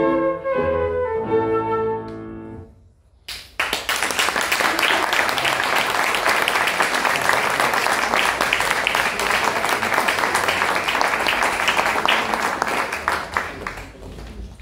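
Flute and piano play the last notes of a Baroque sonata, the final chord held and fading. After a second of near silence, audience applause breaks out and runs for about ten seconds, dying away near the end.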